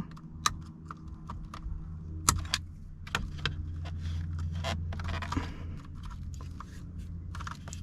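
Scattered small clicks and rattles of hands working a plastic wiring connector loose at the steering-wheel airbag, over a steady low hum.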